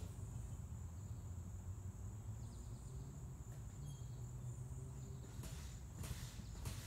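Insects droning steadily over a faint low hum. From about five seconds in, footsteps come crunching through dry leaf litter close by.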